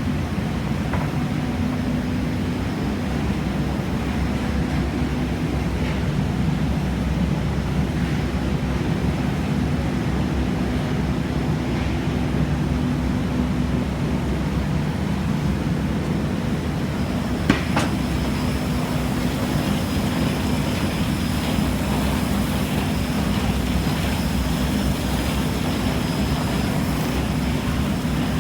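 Industrial profile sanding machine running steadily, with a steady low hum. There is a sharp click about two-thirds of the way through, after which a thin high whine is more noticeable.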